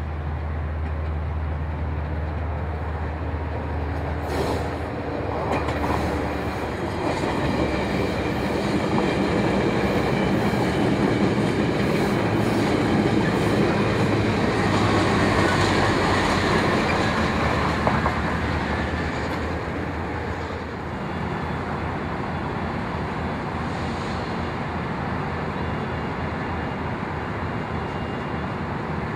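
Metrolink commuter train of bilevel coaches rolling past on the rails, the sound building to a peak in the middle and easing off about twenty seconds in.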